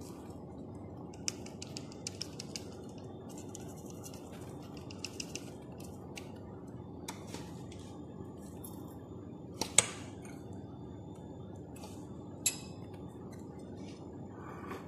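Scattered light clinks and taps of metal kitchenware against dishes over a steady low hum, with short runs of quick ticks early on and two sharper clinks, one about ten seconds in and one a couple of seconds later.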